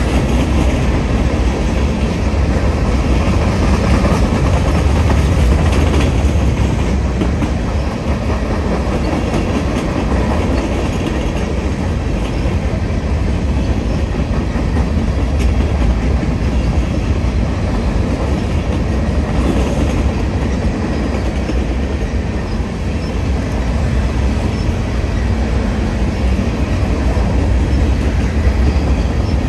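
Freight train's open-top hopper and gondola cars rolling past, a steady rumble of steel wheels on rail.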